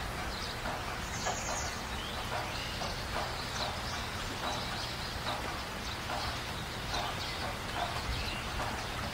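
Knife and cleaver working through a large fish on a wooden chopping block: short, faint strokes that repeat about every half second to second over a steady background noise.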